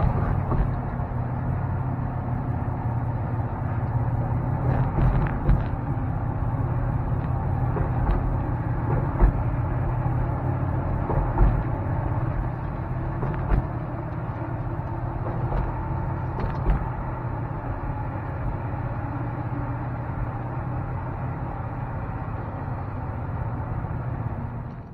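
Car driving: a steady engine and road hum, with a few light knocks scattered through it.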